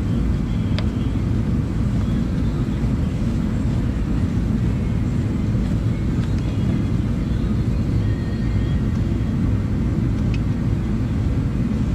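Steady low rumble with no pitch to it, typical of wind buffeting the microphone outdoors, with a couple of faint clicks.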